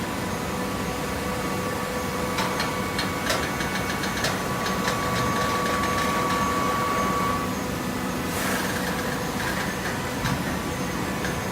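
Coconut coir fiber baling machine running with a steady mechanical hum, with a run of clicks and clanks about two seconds in and a held whine that stops past the middle. A short hiss follows a little later.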